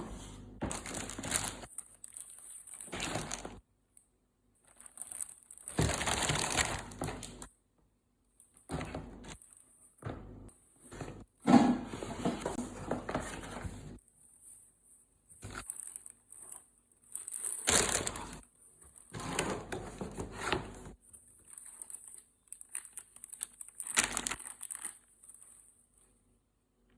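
Packaging being crinkled and torn during an unboxing, in irregular bursts of rustling separated by short pauses, with a few sharper knocks.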